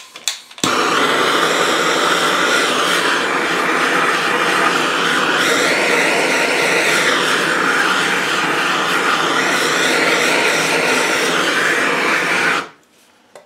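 Handheld gas blowtorch burning with a steady hissing rush as its flame heats a gear seized on its gearbox shaft spline. It starts suddenly under a second in and cuts off abruptly about a second before the end.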